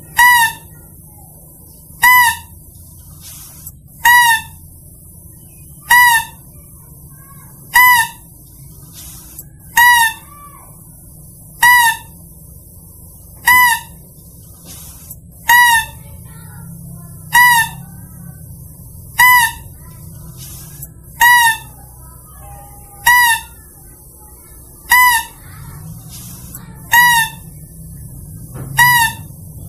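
Hunter's lure call for mouse-deer (kancil): a short, high, clear call repeated evenly about every two seconds, sixteen times.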